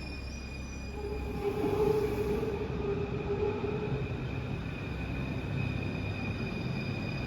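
Paris Métro MF 01 train running in the station with a rumbling noise. A mid-pitched whine sounds from about one to four seconds in.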